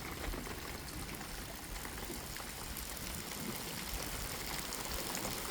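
Steady rain pouring down in a thunderstorm, an even hiss of falling and running water that grows slightly louder toward the end.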